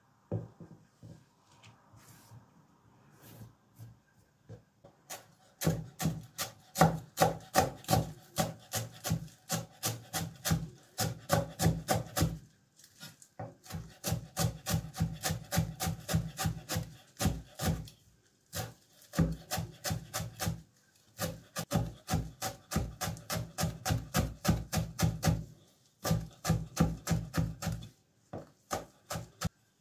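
Chef's knife chopping fresh parsley on a wooden cutting board: rapid, even knocks of the blade on the board, about four to five a second, in runs of several seconds with short pauses. The first few seconds hold only faint scattered knocks before the steady chopping starts.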